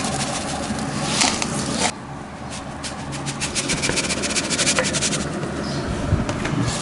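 Hands rubbing and mixing grated boiled potato with powdered sago on a steel plate: a rough scraping rub with many small scratchy clicks, which eases a little about two seconds in.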